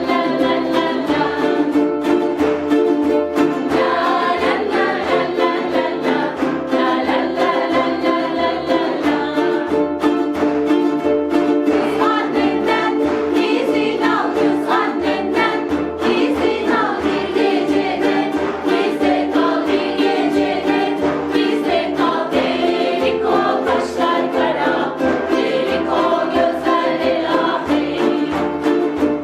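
Ukuleles strummed in steady chords while a group of voices sings along.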